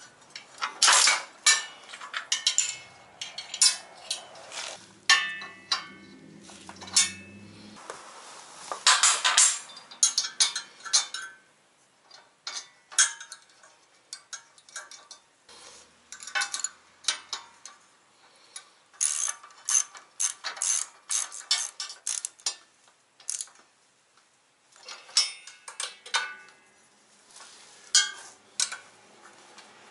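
Hand wrenches clinking and clattering against the bolts and steel parts of a tow-behind plug aerator in irregular bursts of sharp metal clicks as nuts are tightened, with a ratchet wrench clicking. There is a quieter stretch about halfway through.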